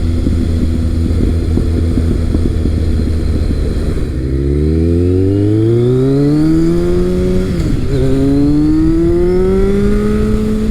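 Kawasaki ZRX1200 inline-four engine running through an ART slip-on exhaust under acceleration, with wind rushing at the microphone. The engine note climbs steadily from about four seconds in, dips briefly at a gear change about two-thirds of the way through, then climbs again in the next gear.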